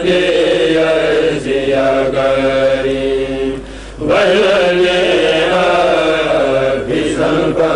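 A kourel, a group of men, chanting a Mouride khassida together in unison in long, held lines. The voices drop away briefly about three and a half seconds in, then come back together strongly a moment later.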